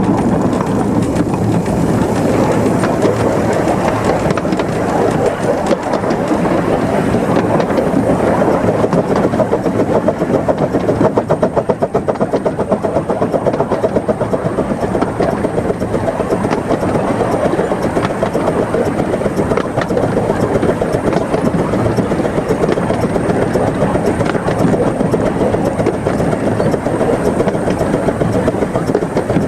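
15-inch gauge Krupp 4-6-2 Pacific steam locomotive running, heard from the footplate: a steady rapid rhythmic beat with wheel and rail noise, the beat strongest about a third of the way in.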